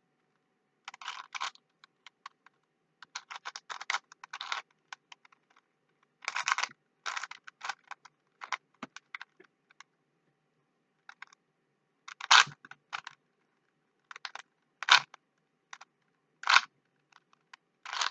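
Plastic Rubik's cube being twisted by hand: quick runs of clicking layer turns with pauses between, and a few louder single clacks in the second half.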